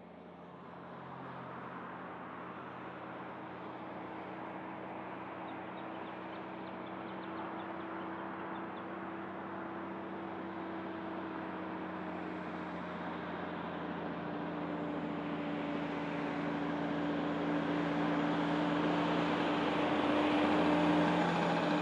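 Diesel tanker semi-trailer truck approaching on the highway and passing close by: a steady engine drone with tyre noise, growing louder until it goes past near the end.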